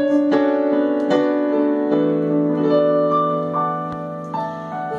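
Digital piano playing a slow instrumental passage of sustained chords and single melody notes, growing a little softer near the end.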